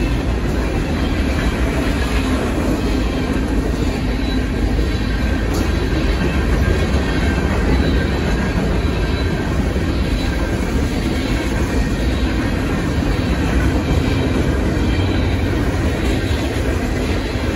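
Freight cars of a manifest train rolling past, a steady rumble with wheels clacking over the rail joints.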